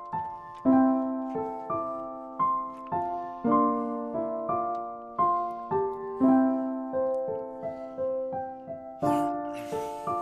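Instrumental intro of a rap beat: a keyboard melody of struck chords, each note ringing and dying away, with a brief swell of hiss about nine seconds in.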